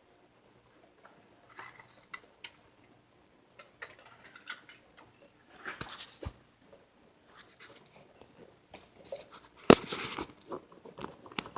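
Scattered handling noises, with rustling, small clicks and one sharp knock about ten seconds in, from working at a workshop light that has a bad connection.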